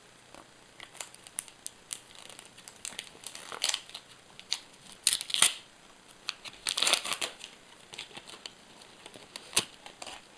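Sticker packet wrappers and stickers being handled: scattered crinkling and rustling in short bursts, with a few sharp clicks.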